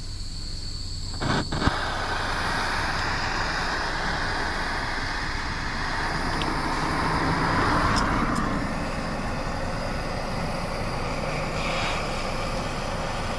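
Handheld gas torch lit with a couple of clicks about a second in, then hissing steadily as its flame heats a broken bolt stuck in an engine block to loosen it for extraction; the hiss swells for a moment past the middle.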